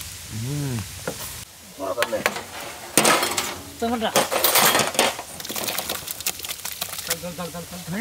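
Large metal pans and heaps of squeezed orange peels being handled, with scraping, clinks and wet rustling that are loudest in the middle. Several men's short calls and chatter come and go over it.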